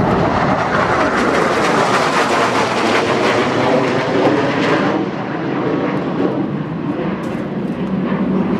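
Pair of Cessna A-37 Dragonfly jets flying overhead, their twin General Electric J85 turbojets making a loud, steady jet noise. The high hiss drops away suddenly about five seconds in.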